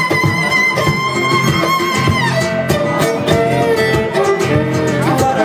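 Live acoustic music without singing: a long held melody note for about two seconds, then shorter notes, over strummed chords.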